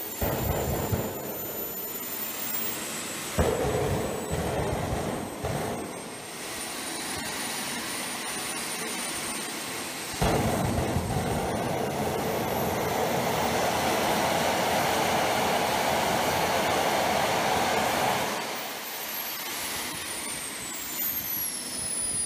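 Model jet turbine of an RC jet dragster running on a static stand, a high whine over a steady roar. About ten seconds in it spools up to full throttle with its afterburner lit, much louder and with the whine climbing in pitch. It throttles back about eight seconds later, and the whine slides steeply down near the end.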